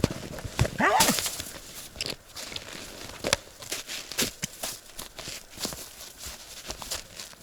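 Footsteps crunching through deep snow in an uneven rhythm, with a brief voice-like sound about a second in.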